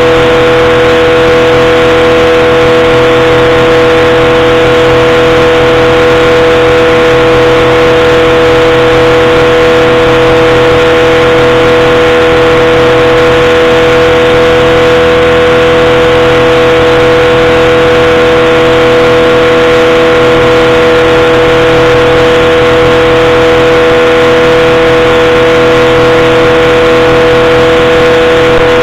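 Powered parachute's engine and propeller running in flight at a steady throttle: a loud, constant drone whose pitch holds unchanged throughout.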